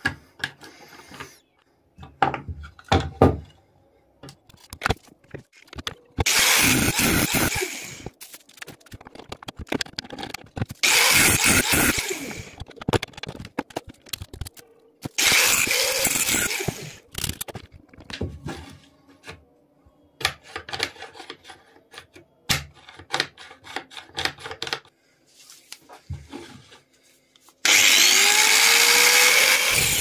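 Handheld angle grinder cutting and grinding a metal barrel door bolt in four separate bursts, the last and longest near the end. Between the bursts come clicks and knocks of parts being handled.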